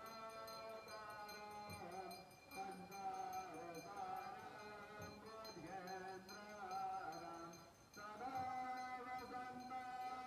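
Hindu devotional singing for the aarti: a man's voice chanting a hymn in long, slowly bending notes over music, with a light regular ticking high above it.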